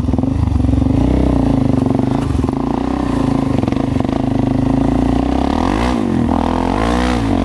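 Suzuki DR-Z400 supermoto's single-cylinder four-stroke engine running as the bike is ridden, the revs rising and falling about a second in and twice near the end.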